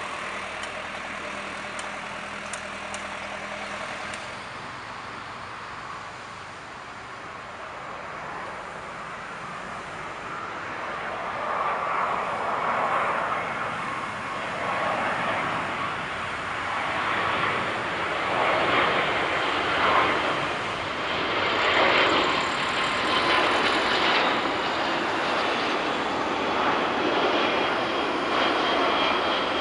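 Jet engines of a British Airways Boeing 767 on landing approach. A rushing engine noise grows steadily louder from about ten seconds in as the airliner comes closer, and a steady high whine joins it in the last seconds.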